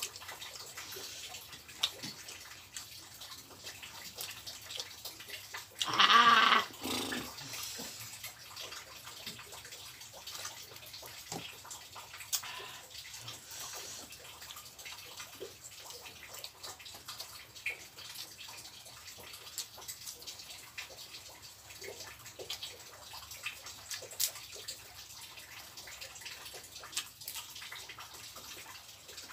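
Eating sounds of a man eating fried catfish and rice with his fingers: small wet chewing and mouth clicks scattered throughout, over a steady hiss of drizzling rain. About six seconds in there is one brief, loud, voice-like sound.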